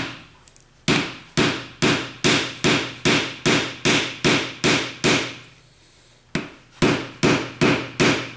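Mallet blows on a metal rammer, packing a clay bulkhead (end plug) into a cardboard rocket motor tube. Sharp, ringing knocks come about three a second, stop for about a second past the middle, then start again.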